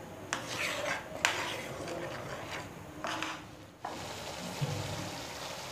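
Spatula stirring and scraping thick chilli sauce in a kadhai, with a couple of sharp taps against the pan in the first seconds. After about four seconds the stirring stops, leaving a quieter steady sound of the sauce cooking in the pan.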